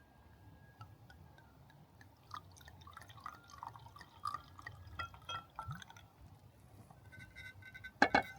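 Faint drips and small clinks of liquid and glassware, ending in a sharp clink near the end.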